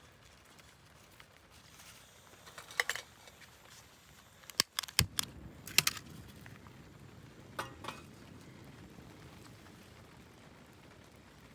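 Scattered light clinks and knocks of small hard objects being handled, in a few brief clusters over a quiet background, as of camp gear being packed up.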